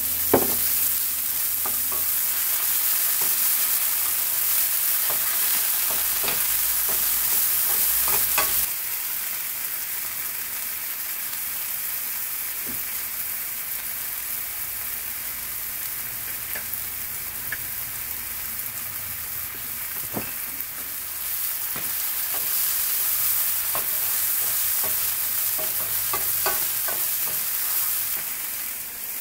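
Diced mushrooms sizzling in a nonstick frying pan while a wooden spoon stirs and scrapes them, knocking against the pan now and then. The sizzle is louder for the first several seconds and again near the end.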